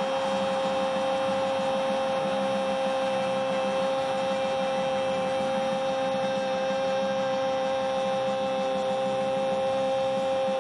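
Football commentator's long, held goal cry, one unbroken "goooool" on a steady pitch, over the stadium crowd cheering.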